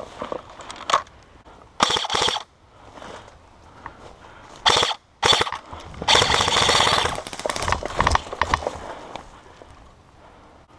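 Airsoft guns firing on full auto: several short bursts of rapid shots, with one longer burst of about a second a little past the middle.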